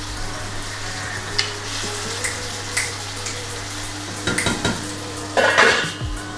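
Onion sizzling in a frying pan over a steady low hum, with a few short, louder noises, the biggest a little after four seconds and again just after five.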